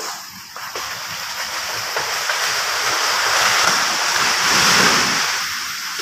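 A gust of wind rushing through the surrounding trees, swelling to a peak about four to five seconds in and then easing off.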